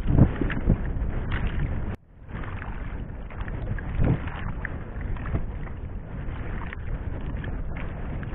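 Water and wind noise around a small fishing boat at sea, with a few knocks near the start and again about four seconds in. The sound cuts out briefly about two seconds in.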